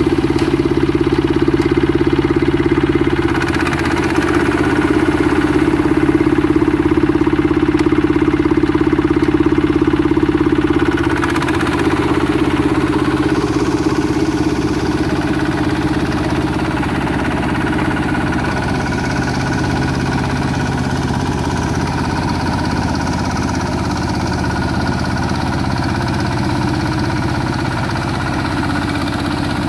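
Quick H-140 R mini rice combine harvester running steadily as it cuts and threshes rice. Its engine note is even throughout and gets a little quieter about eleven seconds in.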